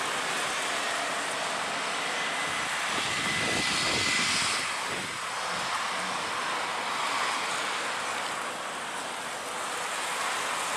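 Aircraft engine noise at an airfield, a continuous roar that grows louder to a peak about four seconds in and then eases off, with a thin high whine over the first half.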